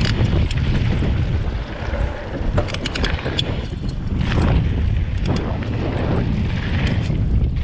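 Specialized Rockhopper 29 mountain bike riding down a dirt trail: a steady rush of wind on the mounted camera's microphone over tyre noise, with frequent sharp clicks and rattles from the bike.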